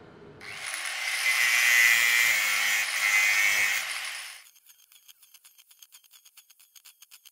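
A power tool runs on metal for about four seconds, building up and then dying away. After it stops, a quiet, fast, even ticking follows.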